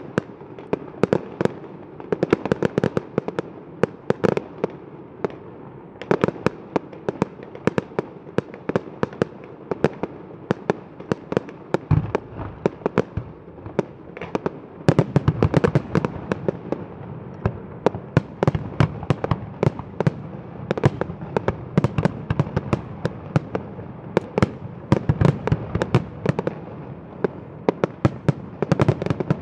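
Aerial fireworks display: a rapid, continuous stream of bangs from shells bursting, growing denser and louder about halfway through.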